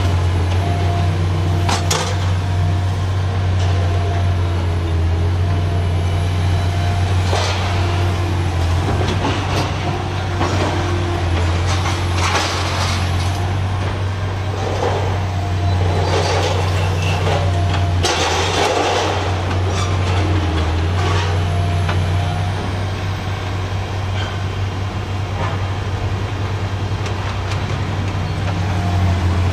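Liebherr R956 demolition excavator with scrap shears working steel girders: its diesel engine runs with a steady low drone and a faint hydraulic whine. Sharp clanks and several louder bursts of metal crunching and scraping come through the middle.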